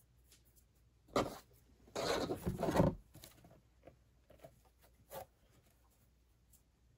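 A craft sign being picked up and moved on a hard tabletop: a knock about a second in, then about a second of rubbing and scraping, with a few light taps afterward.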